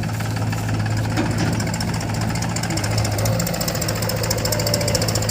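Diesel engine running steadily, a low hum with a fast, even clatter.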